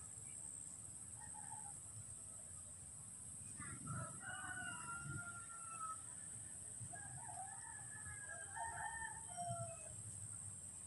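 A rooster crowing: one long call about four seconds in, with more crowing-like calls a few seconds later, all faint, over a steady high hiss.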